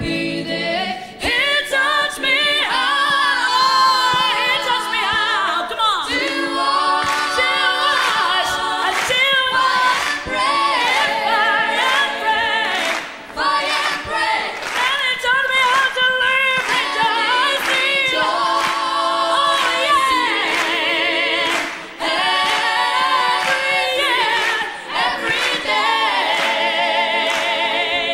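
A woman singing a cappella without words, gospel-style runs that climb to very high notes in the whistle register, with quick vibrato on the held notes.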